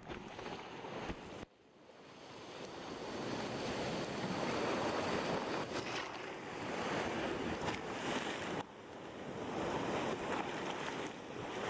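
Breaking surf and rushing whitewater around a sea kayak among rocks, with wind buffeting the microphone. The roar cuts off sharply twice, about a second and a half in and again near nine seconds, then swells back up each time.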